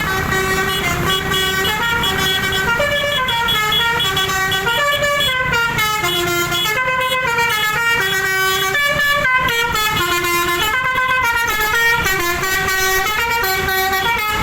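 Bus telolet horn, a multi-tone musical horn, playing a long unbroken tune of quickly stepping notes.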